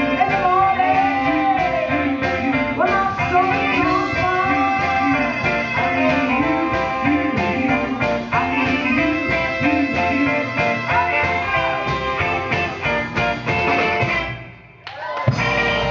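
Live soul-funk band playing: electric guitar lines over bass and a steady drum beat. Near the end the music drops away for a moment, then comes straight back.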